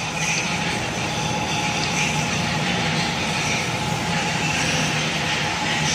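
A steady mechanical drone: a continuous low hum with a hiss above it, unchanging throughout.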